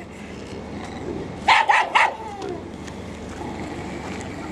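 Dog barking three times in quick succession about a second and a half in, the last bark trailing off, over steady background noise.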